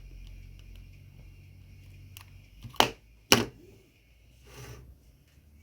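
Two sharp clicks about half a second apart, then a softer brushing sound about a second later.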